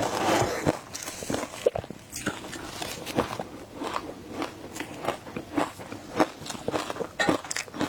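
Shaved ice being bitten and chewed close up: a dense, irregular run of sharp crunches and crackles.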